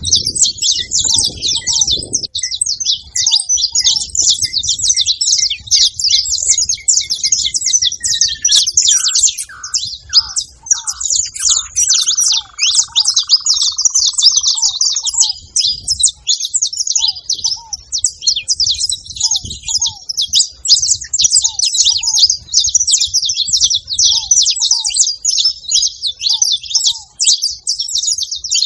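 A group of saffron finches chirping and singing together in a dense, continuous chatter. Through the middle, a separate series of lower notes speeds up and falls in pitch, from another bird.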